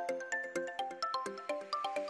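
Background music: a quick melody of short, ringing pitched notes, about six notes a second, with no drums or bass.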